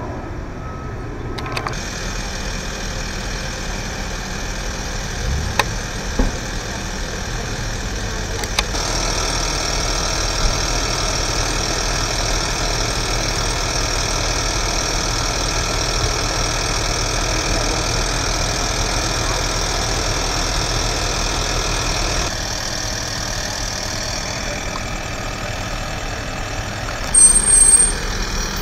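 Heavy trucks idling steadily, a continuous low engine rumble with a few short knocks. Near the end come a few louder bursts with short high tones.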